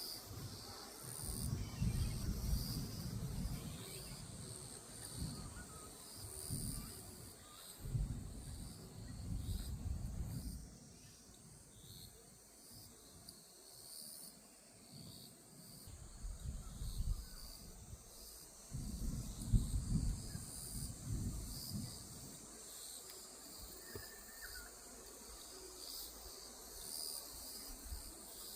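A steady chorus of grass insects trilling in a high, pulsing drone, with wind buffeting the microphone in low gusts three times.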